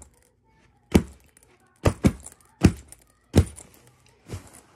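A hand patting the front of a sequined backpack: about six separate thumps, spaced roughly a second apart or less.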